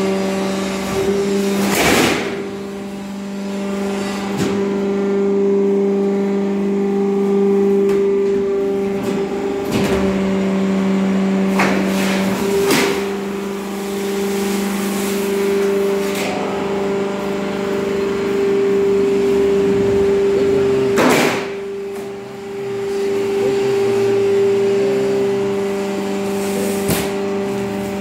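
Bending press machine running with a steady motor hum, broken by a handful of sharp metallic knocks at uneven intervals; the loudest comes about three-quarters of the way through.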